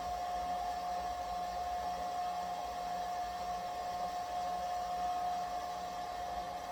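Hair dryer running steadily: a constant rushing noise with a steady whine in it.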